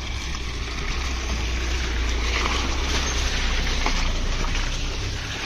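Mahindra Bolero 4x4 pickup's diesel engine running as it drives slowly past on a muddy track. It grows louder towards the middle and fades near the end.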